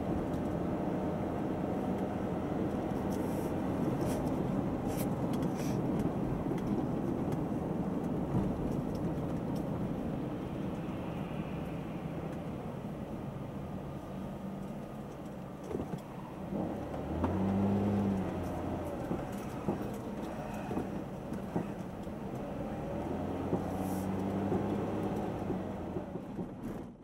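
Engine and road noise inside a moving car, a steady hum from the cabin. The engine note grows louder for a moment about two-thirds of the way through, then settles again.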